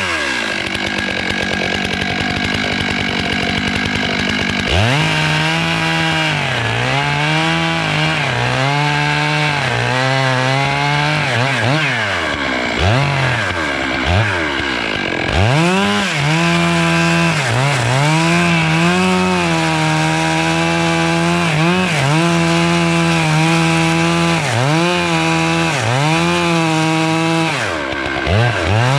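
Chainsaw cutting melaleuca wood. It runs low for the first few seconds, then revs up about five seconds in, and its pitch dips again and again as the chain bogs under load in the cut. It drops off briefly around the middle and again near the end.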